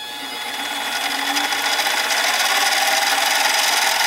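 Harbor Freight mini lathe running, spinning a G5 titanium bar while a rag with Flitz polish is pressed against it. A steady hiss with a faint motor whine, growing louder over the first two seconds, then holding.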